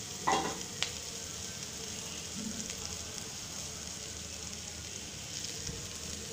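Shredded cabbage sizzling in oil in a pan, a steady hiss, with two brief knocks in the first second.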